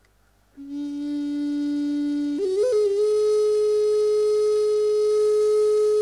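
Native American flute, a wooden flute with a block and two chambers, played solo: a low note held for a couple of seconds, then a quick ornamented leap up to a higher note held steadily.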